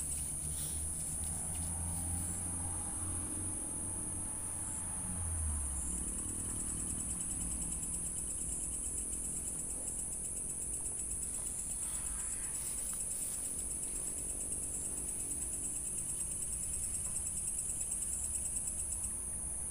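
Crickets chirring in a steady, high-pitched night chorus, with a low hum under it for the first five seconds or so.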